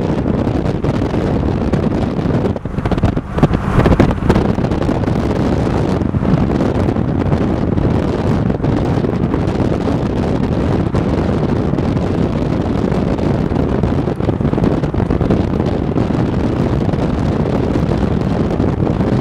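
Wind rushing and buffeting over the microphone from a moving car, over steady road noise. The buffeting grows louder for a moment about three to four seconds in.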